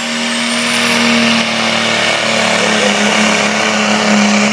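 Diesel engine of a pull vehicle running hard under load as it hauls the sled down the track. It gives a loud, steady drone that steps up slightly in pitch about a second and a half in.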